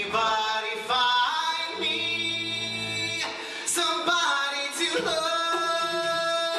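A mixed male and female a cappella vocal group singing live into microphones in close harmony, with a low bass voice underneath for a moment; from about five seconds in the voices hold a long chord.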